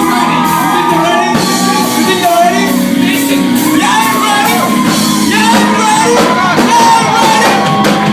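Loud live worship band music with singing, and a crowd shouting and whooping over it.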